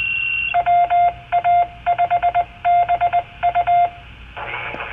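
Amateur radio balloon repeater identifying itself over the receiver: a short high beep, then a mid-pitched tone keyed in Morse code dots and dashes that spell out the repeater's callsign, followed by receiver hiss near the end.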